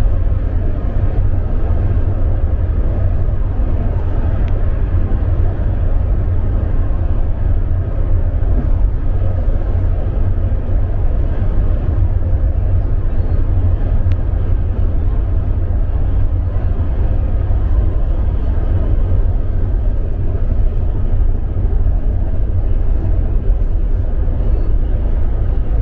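Steady low engine and road rumble of a moving bus, heard from inside the cabin.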